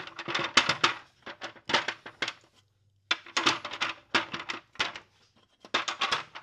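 Metal bolts and the clutch cover clicking and knocking against the clutch housing as the cover is pulled and rotated out: an irregular run of sharp clinks with a brief pause just before halfway.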